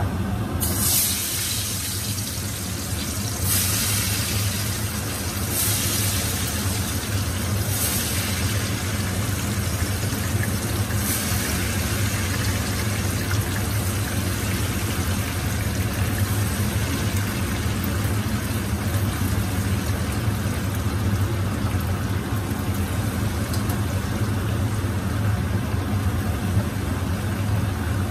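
Spice-coated potato pieces deep-frying in hot oil in a saucepan, a steady loud sizzle. It flares up about five times in the first dozen seconds as each handful is dropped in. A steady low hum runs underneath.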